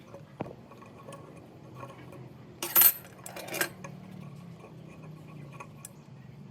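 Small metal parts clinking and tapping as they are handled, with a louder clatter about halfway through and another a moment later.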